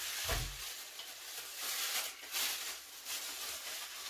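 Packaging rustling and crinkling as it is handled and pulled away, with a dull bump about half a second in.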